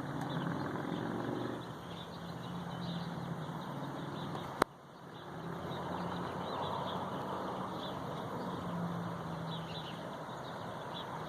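Steady outdoor background noise with a low hum, small birds chirping now and then, and one sharp click a little over four seconds in.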